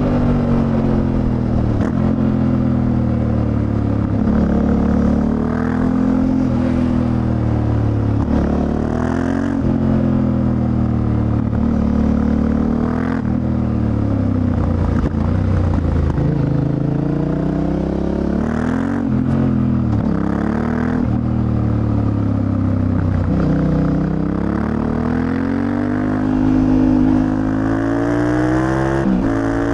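Yamaha Ténéré 700's CP2 689 cc parallel-twin engine under way, its pitch climbing and dropping again and again as the bike accelerates and rolls off.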